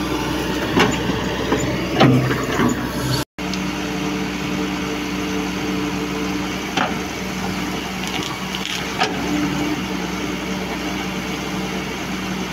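Diesel engine of heavy machinery, an excavator or tractor, running steadily under a few sharp cracks and knocks, as of wood splitting. The sound cuts out for a moment after about three seconds.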